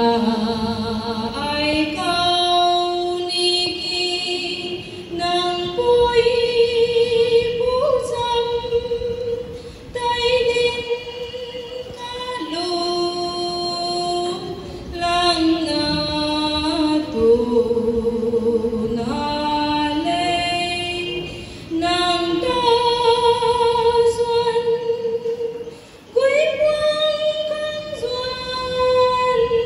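A group of voices singing without accompaniment, in phrases of long held notes that step from pitch to pitch, with short breaks between phrases.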